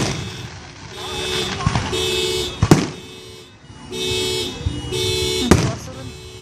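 Fireworks going off in about four sharp bangs a second or more apart. Underneath runs a car alarm sounding in a repeating on-off pattern of steady electronic tones, likely set off by the blasts.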